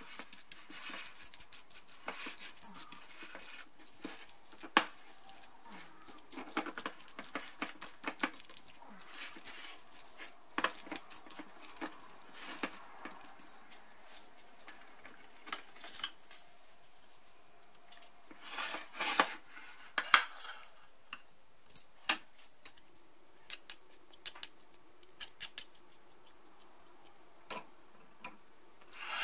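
Silicone spatula stirring a wet flaked-coconut and egg macaroon mixture in a ceramic bowl, with soft scraping and clinks against the bowl's side. The stirring is busy through the first half, then thins to a few sharp clinks.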